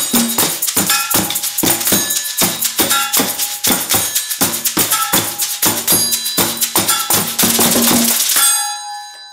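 Percussion ensemble playing a fast, busy groove on a hand drum, tambourine, shakers and found objects, including a plastic tub tapped with sticks. It stops near the end, leaving a metallic ringing to die away.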